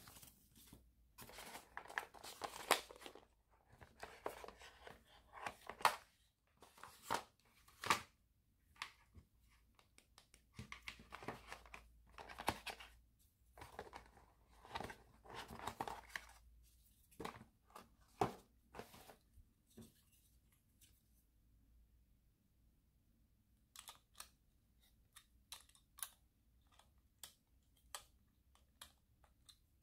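Handling noise from a cardboard box and its packaging insert, rustling and scraping in irregular bursts as the cable and power adapter are lifted out. Near the end, a few small plastic clicks as the plug adapter is fitted onto the power supply.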